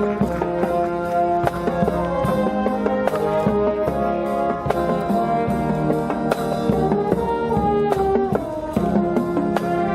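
Brass-and-percussion marching band playing a tune: sustained brass chords over steady drum beats.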